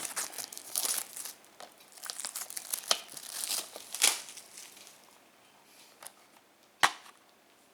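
Plastic shrink-wrap crinkling and tearing as it is pulled off a Blu-ray case, then a single sharp snap near the end as the case opens.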